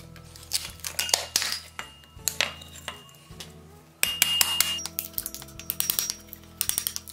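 A hammer tapping the end of a screwdriver to split and chip old wood out of an iron fitting held on an anvil: sharp metallic taps at irregular intervals, bunching into a quick flurry near the end.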